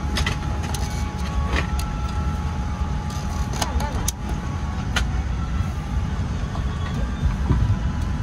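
Steady low rumble of a Boeing 787-9's cabin air-conditioning before departure, with a few sharp clicks from handling the plastic seatback entertainment handset and faint passenger voices.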